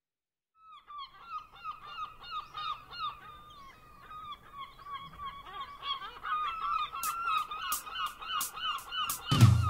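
A flock of gulls calling, many short calls overlapping. From about seven seconds a sharp tick comes in about three times a second, and loud music with heavy bass starts just before the end.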